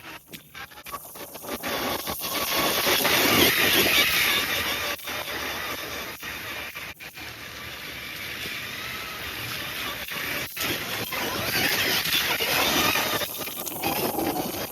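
A vehicle running, loudest about three to four seconds in and again about twelve seconds in, with scattered sharp clicks over it.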